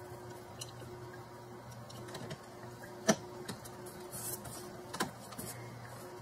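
Scattered sharp clicks and light knocks of hand work on the upper radiator hose and its retaining clip, the loudest about three seconds in and another about two seconds later, over a faint steady hum.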